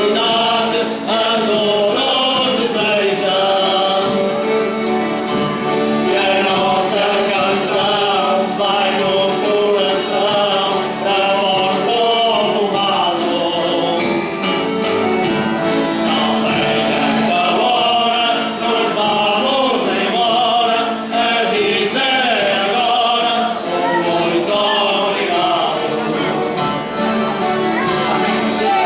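A group of men's voices singing together, accompanied by piano accordion, acoustic guitars and a mandolin: a folk song of a Portuguese Holy Spirit foliões group. The song goes on without a break.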